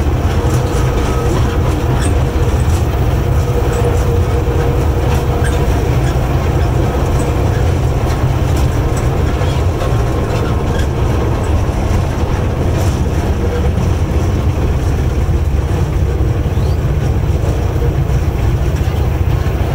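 Train rolling along rail track: a loud, steady low rumble with scattered clicks and rattles from the wheels and car.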